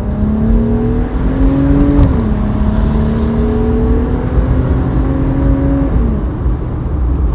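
Jeep Wrangler JL accelerating from a stop, heard from inside the cabin with the top open. Its exhaust has the muffler removed and a second resonator welded in, and it sounds not too loud. The engine note rises, drops at an upshift about two seconds in, climbs again and drops at a second shift near the end.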